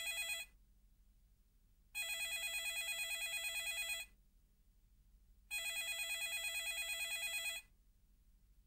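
Landline telephone ringing with a warbling electronic trill: the tail of one ring near the start, then two full rings of about two seconds each, with about a second and a half of silence between them.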